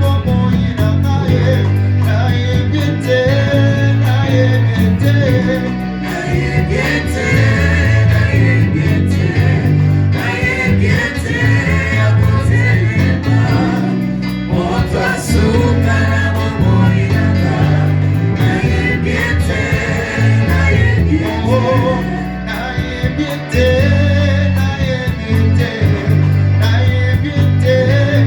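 Live gospel worship music: a choir or congregation singing over a band with a steady bass line.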